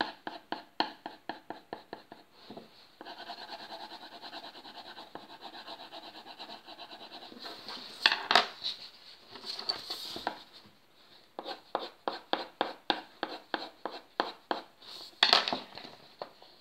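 Coloured pencil shading on paper: quick back-and-forth scratching strokes, about four to five a second, filling in a drawing in blue. A few louder knocks and paper rustles come in the middle and again near the end.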